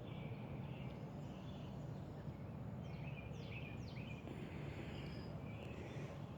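Birds calling outdoors: a few quick downward-sliding chirps in a cluster near the middle and some fainter scattered calls, over a steady low background rumble.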